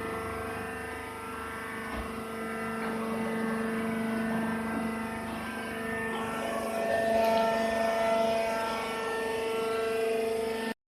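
A machine running with a steady drone made of several held tones. The tones shift about six to seven seconds in.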